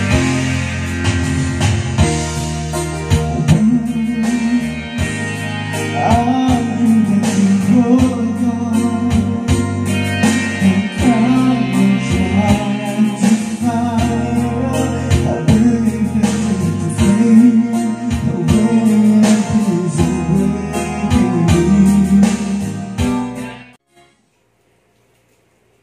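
Karaoke music track playing from a TJ Media TKR-305P karaoke player, its guide vocal switched off. The music cuts off suddenly near the end, followed by silence.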